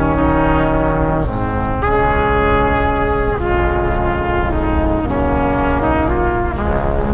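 Background music: slow, sustained chords, each held a second or two before moving to the next.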